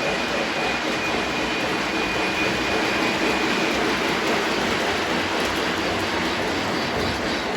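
Lionel Lion Chief O-gauge model trains running on the track, a steady rumble of wheels on rails and motors.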